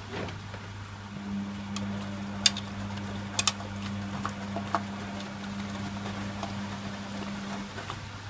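Servis Quartz MK601 washing machine running a wash: a steady hum starts about a second in and stops shortly before the end, over a constant low background hum, with a few sharp clicks and light knocks in between.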